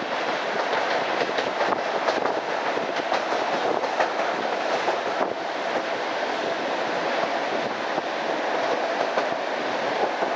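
Suburban electric train running at speed, heard from inside a passenger car: a steady rumble of wheels on rails with many sharp clicks and knocks of the wheels, which thin out after about five seconds.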